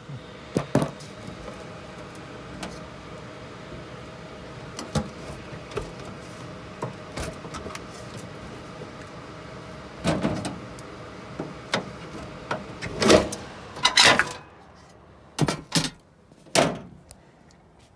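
Furnace blower running with a steady hum, kept running because the high-limit wire has come loose, under scattered clicks and knocks from handling inside the cabinet. Several louder clunks come in the second half, and the blower hum cuts out about three-quarters of the way through.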